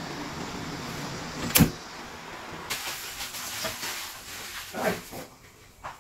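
Gas burner running steadily under a stainless steel steamer, then a sharp click-knock about one and a half seconds in as the heat is turned off. From about three seconds in, a hiss of steam as the cloth-wrapped lid is lifted, with a couple of light metal knocks from the lid and pot.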